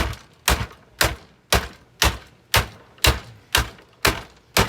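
Steady, evenly spaced blows, about two a second, about ten in all, as a Hoover vacuum cleaner is smashed apart.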